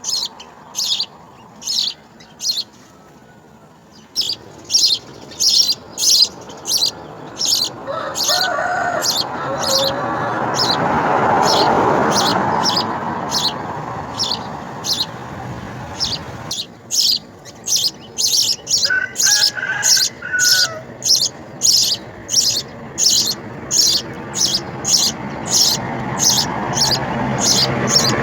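House sparrows chirping: short, sharp chirps repeated about twice a second, with a brief pause a few seconds in, over a background rush that swells and fades.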